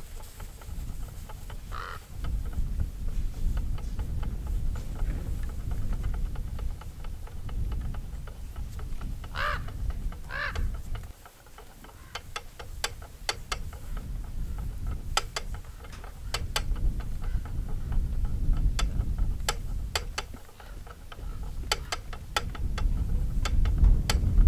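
Wooden treadle spinning wheel turning as alpaca fiber is spun onto the bobbin, giving sharp irregular clicks through the second half over a low rumble. A few short hums from alpacas come about two seconds in and near the middle.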